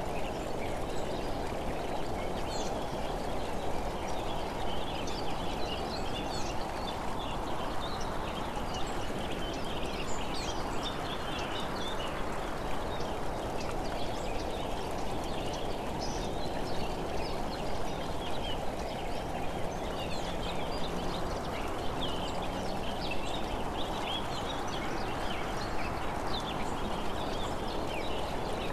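Steady rush of road and wind noise from travelling along the road, swelling and easing slowly, with many short high bird chirps over it.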